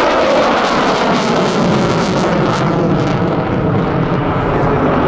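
U.S. Navy F-35C Lightning II jet, its Pratt & Whitney F135 engine running loud as it passes the crowd. The pitch sweeps down at the start, then a steady rumbling roar holds.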